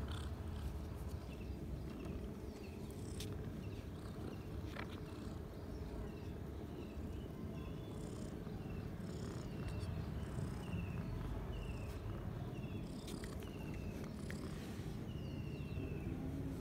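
Young domestic cats purring, a low steady rumble, with short high falling chirps repeating about once a second.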